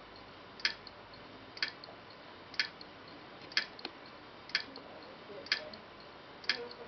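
Bare 2.5-inch laptop hard drive clicking sharply and evenly about once a second, each click a quick double tick: the drive is failing to read its data.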